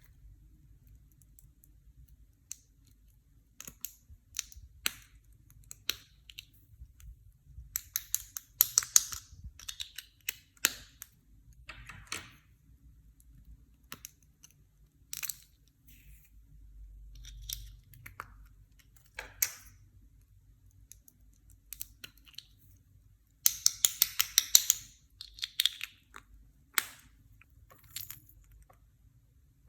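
Clear slime being squeezed and mixed by hand, giving irregular sharp clicks and crackling pops. Two dense bursts of crackling come about eight seconds in and again near the middle of the second half.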